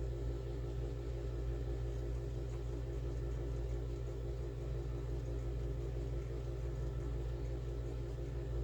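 Steady low mechanical hum from a running machine, with a fast, even pulse riding on it and no change in level.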